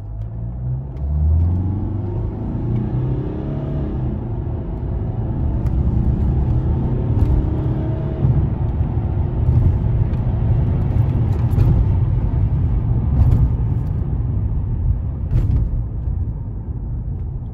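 Mercedes-Benz W211 E220 CDI's 2.2-litre four-cylinder diesel heard from inside the cabin, accelerating hard on automatic kickdown. The engine note climbs, drops back as the gearbox shifts up about four and eight seconds in, then climbs again under a heavy low rumble.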